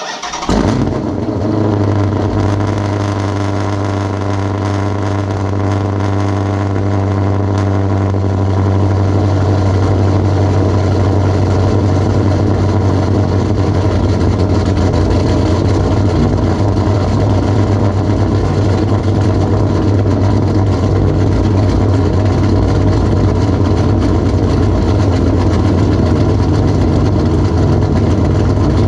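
Cammed 6.4-litre 392 Hemi V8 of a 2014 Chrysler 300 SRT8 cold-starting after sitting for four or five days: it fires up suddenly at the very start and settles into a steady loud idle. The tone shifts a little about eight seconds in as the cold idle settles.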